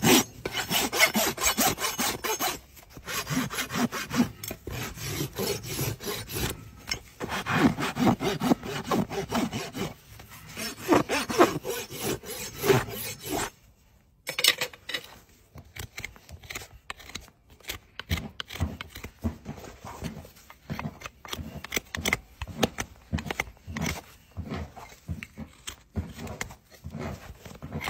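Farrier's rasp filing across a horse's hoof sole in fast, rough back-and-forth strokes. These stop about halfway through, and then a hoof knife pares the frog in shorter, lighter scraping cuts.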